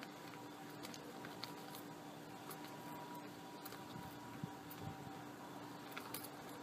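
Faint rustling and small clicks of hands rummaging through a bag for money, over a steady low hum.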